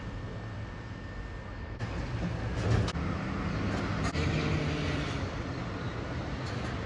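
Garbage truck engine running at the kerb, growing louder about two seconds in, with a few knocks as a wheelie bin is handled at the rear loader about three and four seconds in.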